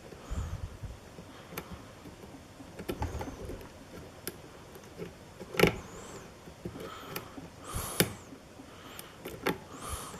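Lock pick working inside a pin-tumbler lock cylinder: scattered sharp metallic clicks and light scraping as pins are lifted and set against tension, with the lock in a false set.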